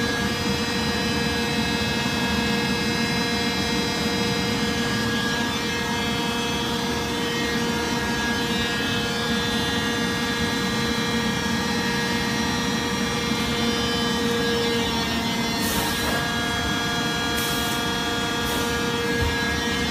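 Industrial press machinery running: a steady machine hum made of several steady tones over a constant rushing noise. A few short high hisses come near the end.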